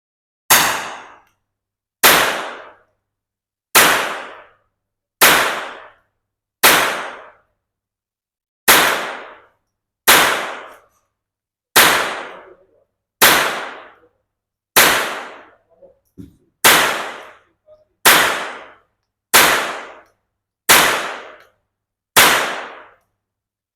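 Smith & Wesson M&P15-22 .22 rimfire rifle fired in slow, steady semi-automatic fire: fifteen sharp shots, about one every second and a half, each dying away in under a second.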